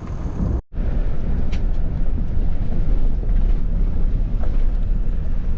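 A vehicle driving on a mountain road: a steady low rumble of engine and road noise with some wind noise. The sound cuts out briefly a little under a second in.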